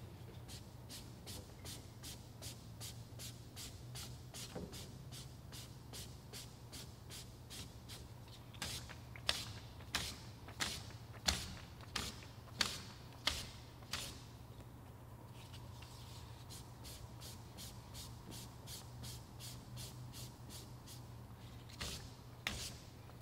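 Sandpaper strip worked back and forth in a shoe-shine motion across the felt tops of Yamaha C7 grand piano hammers: a faint, even rasp of about two to three strokes a second, louder for a stretch in the middle. This is the final smoothing pass in filing grooved, worn hammers that had made the piano sound too bright. A steady low hum runs underneath.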